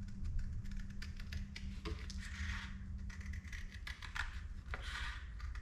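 Light clicks, taps and short scratching strokes from small parts and hand tools being handled on a workbench, over a low steady hum that fades out a little past halfway.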